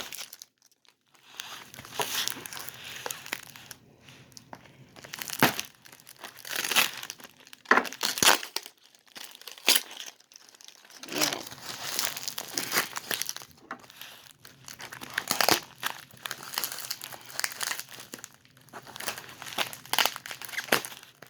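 Taped shipping package being pulled and torn open by hand: irregular crinkling of the tape and packaging, with bursts of tearing.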